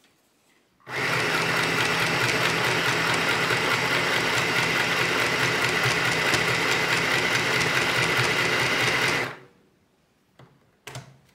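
Easymaxx compact sewing machine's small electric motor running steadily as it stitches through t-shirt fabric, with a fast, even needle rhythm. It starts about a second in and stops shortly before the end, followed by a few faint clicks.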